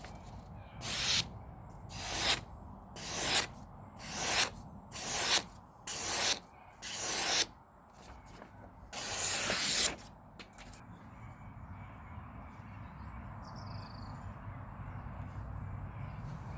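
Knife blade drawn in seven short scraping strokes about a second apart, then one longer stroke just before the middle.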